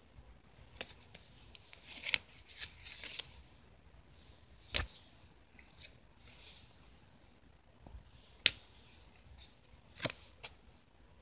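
Trading cards being handled and laid on a pile: soft sliding rustles of card stock broken by several sharp taps and clicks, the loudest near the middle and about three-quarters through.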